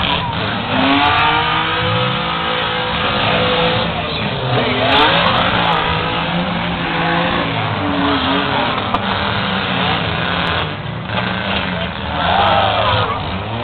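Several four-cylinder demolition derby cars' engines revving up and down, their pitches rising and falling over one another.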